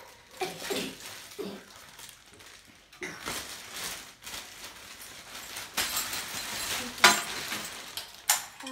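Clear plastic bag rustling as a TV antenna is pulled out of it, with the antenna's metal rods clinking; a sharp clink about seven seconds in is the loudest sound.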